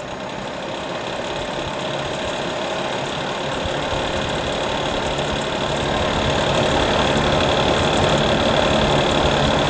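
The fan of a 2000 Fahrenheat electric space heater runs in fan-only mode, with the heat strips off. Its steady air noise grows gradually louder as the fan slowly ramps up toward full speed after being switched on.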